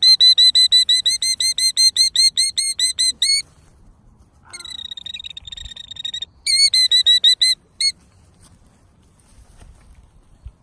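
Killdeer alarm calling: a rapid run of shrill piping notes, about six a second, then a softer trill, another quick run and a last single note near eight seconds. This is the parent bird alarmed at intruders near its ground nest.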